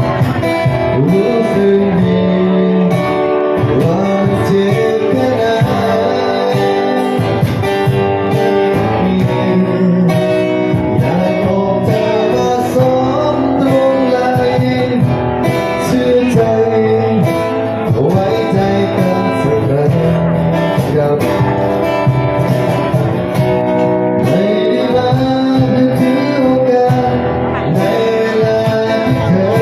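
A man singing a song with guitar accompaniment.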